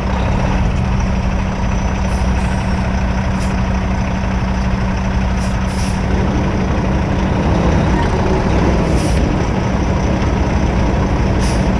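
Heavy diesel truck engine running steadily, with several brief hisses of air.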